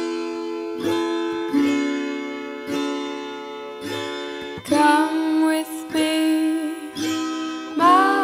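Background music: a plucked-string track with sustained notes struck about once a second, joined about five seconds in by a higher melody line that slides in pitch.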